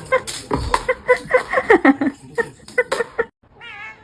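Domestic cat meowing in a quick run of short, repeated calls. After a brief break about three seconds in, a single wavering meow follows near the end.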